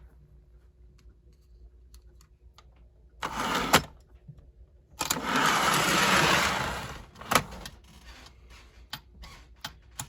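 Lionel switcher locomotive's small electric motor running on battery power in short bursts: briefly about three seconds in, then for about two seconds from the five-second mark, with sharp clicks between and after as the power wire is tapped on and off the battery terminal to cycle the E-unit.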